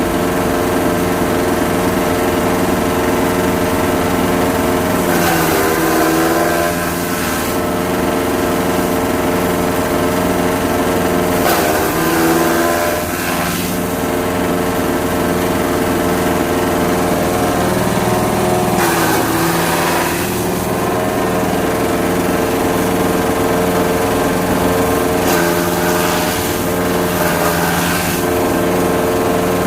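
Small engine-driven grass chopper running steadily at speed; its pitch sags and recovers three times, about 6, 12 and 19 seconds in.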